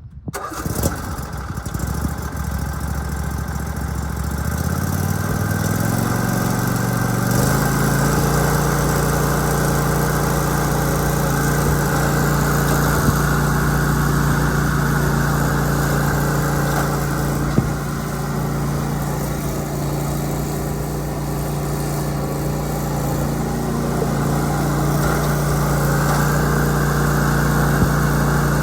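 23 hp Briggs & Stratton engine of a Simplicity Broadmoor riding lawn mower starting up. Its speed rises in steps over the first several seconds as it is throttled up, and it then runs steadily at high speed.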